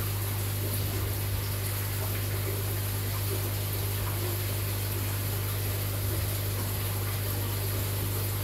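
Aquarium filter pump running, a steady low hum under a constant wash of moving water.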